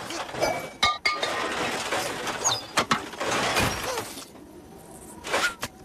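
Cartoon sound effect of junk being rummaged: tin cans and metal scrap clattering and clinking, with several sharp knocks and a few short high-pitched squeaks. It goes quieter about four seconds in, then clatters again near the end.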